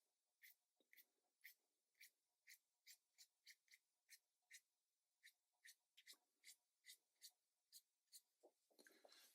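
Faint, quick brush strokes dabbing and scraping across cotton watercolour paper, about two a second, ending in a longer rubbing stroke near the end.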